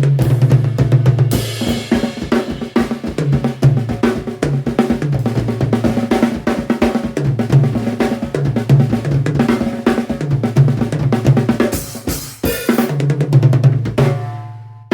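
Yamaha Stage Custom Hip drum kit played with Zildjian A Custom hi-hat and ride cymbals: a busy groove and fills on bass drum, snare and toms. There is a brief break near the end, then a few more hits, and a last hit rings out. Raw sound through a phone microphone.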